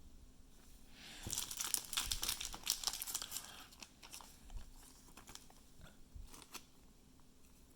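Plastic trading-card pack wrapping crinkling as it is handled, a dense crackle for about two seconds, followed by a few light scattered ticks and taps.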